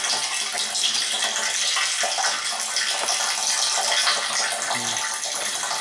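Water from the ram pump's supply line running steadily into a 30-gallon plastic tank, splashing onto the shallow water at its bottom: the pump is delivering water.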